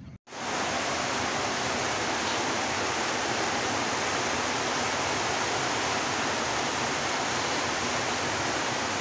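A steady, even hiss that starts abruptly about a quarter of a second in and holds at one level throughout.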